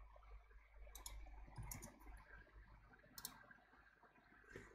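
Faint clicks of a computer mouse and keyboard: a handful of short, scattered clicks during the editing of component values, over a faint low hum.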